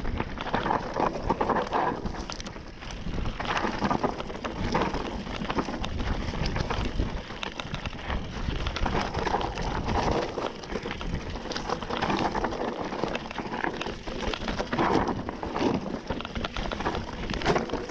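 Mountain bike riding down a rocky, gravelly trail: tyres crunching over loose stones, and the bike rattling and knocking over the bumps in a constant uneven clatter.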